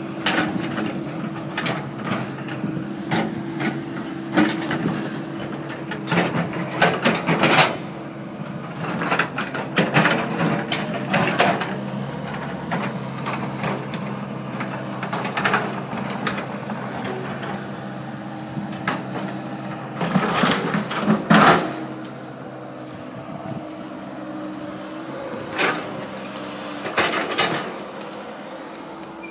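A steady engine hum with irregular knocks and clattering of debris over it, the loudest clusters of knocks about a quarter of the way in and again past two-thirds of the way through.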